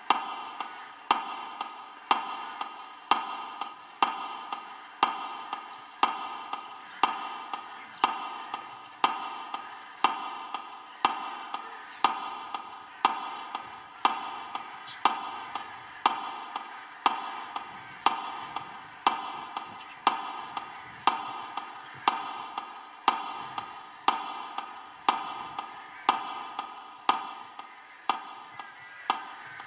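Metronome ticking steadily about once a second through loudspeakers, the beat played to mark a minute of silence.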